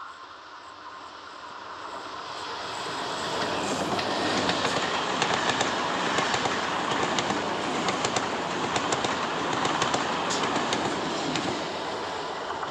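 Electric multiple-unit local train approaching and running past close by, its wheels clattering over the rail joints. The rush of noise builds over the first few seconds, then stays loud with rapid clicks of wheels on joints until it eases slightly near the end.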